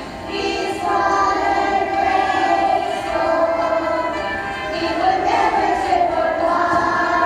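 A group of young children singing a song together in unison over backing music.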